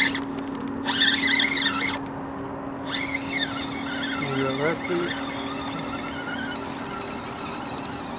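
Spinning reel's drag squealing in a few wavering bursts as a hooked fish pulls line against the bent rod, over a steady low hum.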